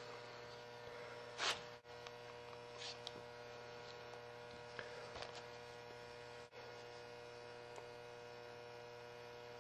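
Faint steady electrical hum, with a few faint brief rustles, the loudest about one and a half seconds in.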